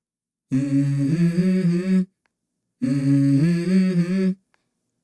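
Song intro: a voice hums a short melodic phrase twice, each about a second and a half long, with the pitch stepping up partway through.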